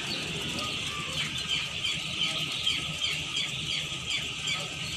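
A crowd of young chicks peeping nonstop: many short, high, falling cheeps overlapping several times a second, over a steady low hum.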